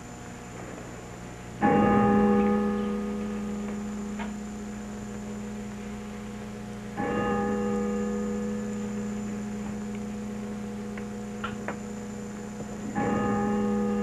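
A church bell struck three times, about five seconds apart, each stroke ringing on and slowly fading, over a steady hum. It is the bell rung at the elevation of the host during the consecration of the Mass.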